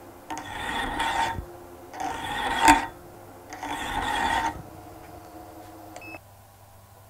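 Hand file rasping against a metal bolt spinning on a wood lathe: three strokes of about a second each, light finishing passes taking next to nothing off to bring it to size. The lathe hums steadily underneath, and part of that hum cuts off about six seconds in.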